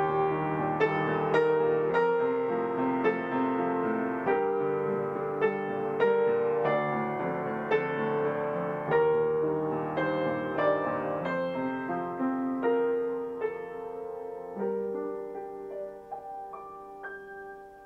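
Gentle piano music, single notes and chords struck one after another at a slow pace and left to ring, growing quieter and fading out near the end.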